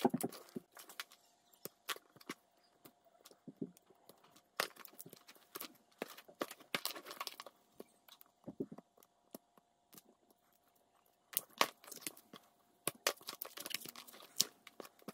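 Old tape and sheathing being cut and peeled off an aged automotive wiring harness by gloved hands: irregular crackling, tearing and small clicks and scrapes against the bench, busiest around the middle and near the end. A faint steady hum runs underneath.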